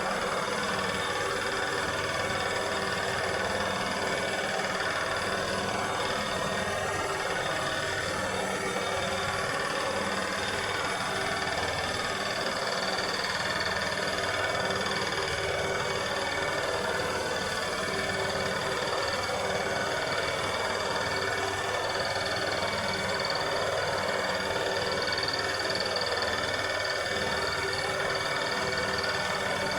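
Lawn mower engine running steadily at constant speed.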